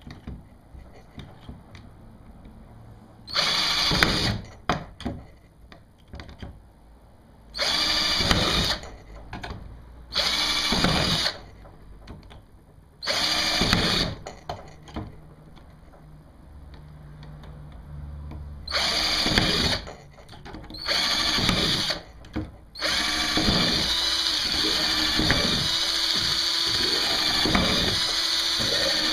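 Cordless drill boring mounting holes through a kayak hull: six short runs of about a second each, then a longer steady run starting near the end.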